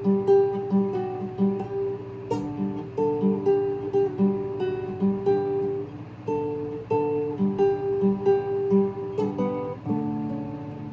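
Acoustic guitar playing an instrumental melody of plucked notes in a repeating pattern, with no singing.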